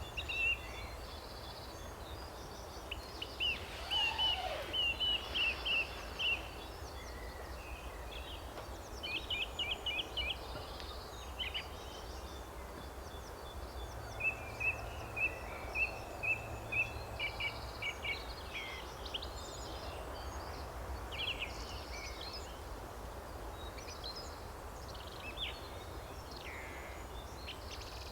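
Several songbirds singing, with runs of quick repeated chirps and trills coming every few seconds, over a low steady rumble.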